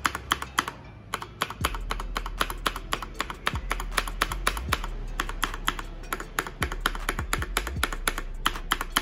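Akko Midnight R2 mechanical keyboard with Akko Pink V2 linear switches, typed on quickly in irregular runs of key clacks. Occasional deeper thuds come from the stabilized long keys, whose factory-lubed Akko V2 stabilizers are being demonstrated.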